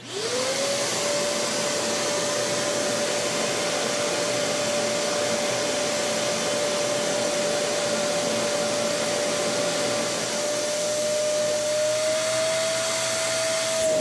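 Kärcher WD2 Plus wet/dry vacuum switched on, its motor spinning up within about half a second to a steady whine over a rush of air as the hose nozzle vacuums a fabric chair seat. The pitch rises a little near the end.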